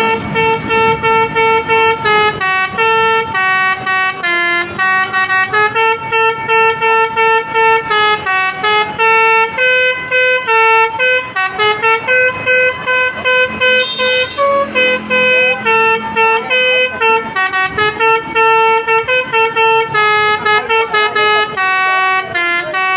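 Basuri-type telolet bus horn playing a long tune of short notes, about two or three a second, stepping up and down in pitch.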